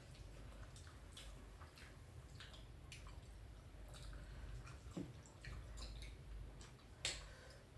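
Faint, wet mouth clicks and smacks of someone chewing pork, scattered irregularly, with a louder click about 7 seconds in.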